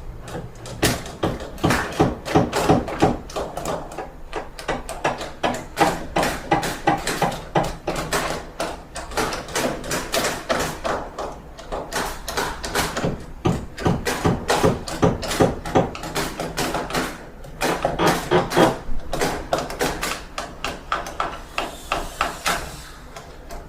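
Renovation work: hammering and knocking, irregular and quick, several blows a second, with short pauses, over a faint steady low hum.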